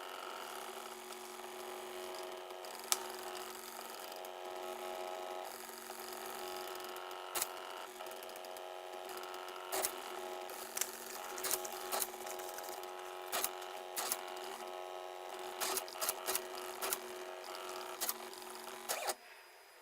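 Stepper motors of a small Arduino-driven CNC pen plotter whining at shifting pitches as it draws, with sharp clicks scattered through. The sound cuts off suddenly near the end.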